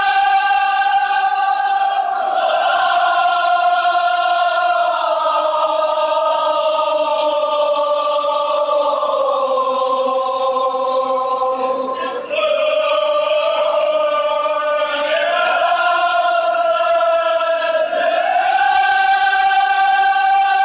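A group of mourners chanting a Kashmiri marsiya (Muharram elegy) in unison, in long drawn-out notes. The pitch sags slowly over about ten seconds, breaks about twelve seconds in, and climbs back up near the end.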